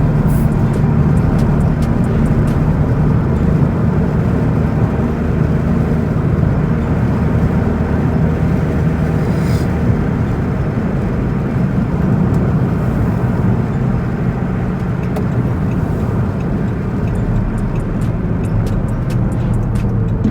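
2012 Dodge Charger's V6 engine running steadily, a low even hum.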